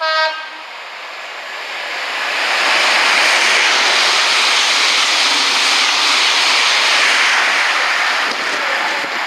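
A train sounds a short horn toot, then passes through the station at speed: a rushing noise that builds over a couple of seconds, holds steady and eases slightly near the end.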